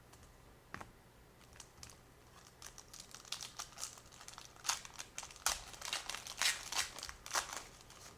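Wrapper of a 2020 Select Baseball hobby pack being torn open and crinkled: a run of irregular crackles and rustles through the middle few seconds.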